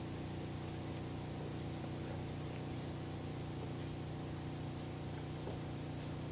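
Steady, high-pitched chorus of insects, unbroken throughout.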